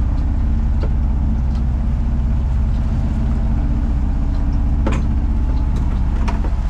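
A fishing boat's engine running steadily with a low, even hum. A couple of brief knocks come near the end.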